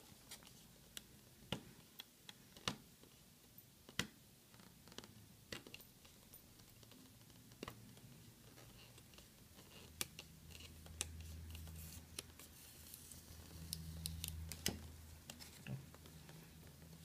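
Faint scattered clicks and scratches of fingernails picking at a tape seal and peeling it off a small cardboard box. A low hum comes in about ten seconds in and fades a few seconds later.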